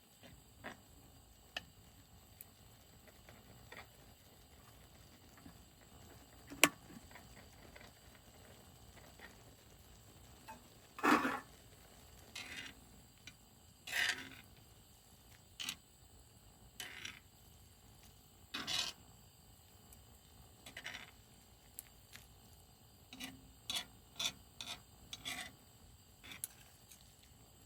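Light clicks and short scraping, rubbing sounds of small objects being handled, one every second or two with pauses between.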